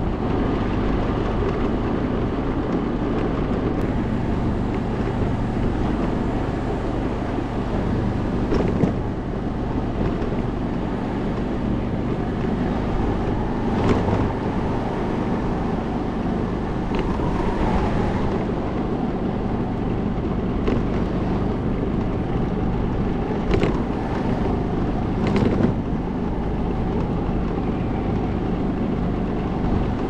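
Steady rumbling outdoor noise, heaviest in the low end, with a handful of brief knocks.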